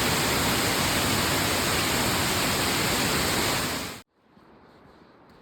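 Waterfall rushing, a steady loud roar of falling water that cuts off abruptly about four seconds in, leaving only faint background.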